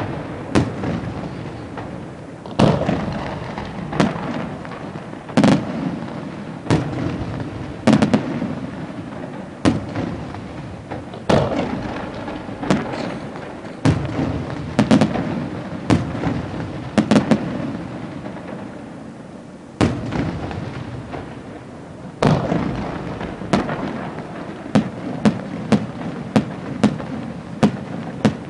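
Aerial firework shells bursting one after another: sharp bangs every second or two, each followed by a rumbling echo, with quicker runs of several reports in a row about halfway through and again near the end.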